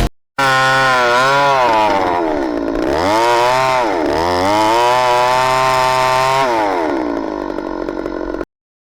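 Stihl chainsaw running at high revs in an Alaskan chainsaw mill, ripping through a log. The engine pitch dips twice under load and recovers, then falls lower near the end before the sound cuts off abruptly.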